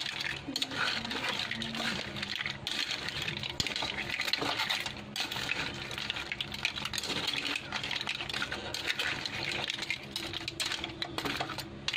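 Metal tongs scraping and clinking against a metal cooking pan and crab shells while cooked seafood and corn are turned in the broth, with liquid sloshing. Continuous irregular clatter with scattered small clicks.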